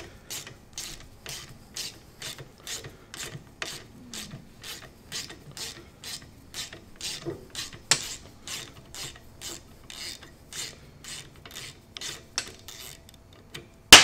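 Ratchet wrench clicking steadily, about three clicks a second, as it turns an extractor socket that is backing a rounded-off bolt out, the bolt now turning more easily. A single sharp metal clank at the very end.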